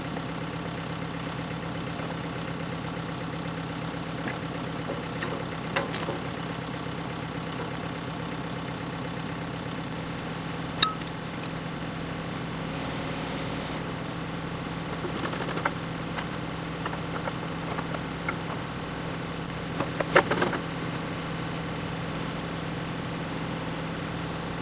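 Caterpillar 430D backhoe's diesel engine idling steadily, with a few sharp metal clanks as the trenching bucket is worked against the quick coupler: one loud clank about eleven seconds in and a cluster of them about twenty seconds in.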